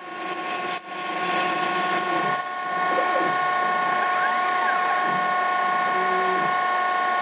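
Denford ORAC CNC lathe cutting 6082-T6 aluminium bar: the spindle drive runs with a steady whine while the tool cuts with a high thin tone, which stops about two and a half seconds in as the roughing pass ends. About four and a half seconds in, the stepper motors whine briefly up and down in pitch as the tool moves to the next step.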